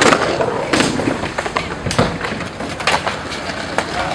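Skateboards cracking and slapping on concrete: a string of sharp cracks from boards popping and landing, irregular and about every half second.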